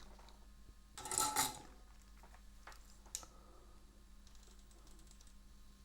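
Light handling noises at a soldering bench: a brief scrape about a second in and one sharp click a little after three seconds, with faint small ticks later.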